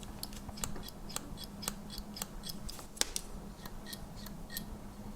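Spring-loaded pliers of a Victorinox Angler Swiss Army knife being worked open and shut, the small metal jaws and spring giving light clicks, about three or four a second.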